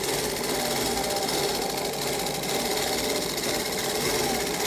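Industrial sewing machine running steadily, stitching a seam in the leather upper of a boot.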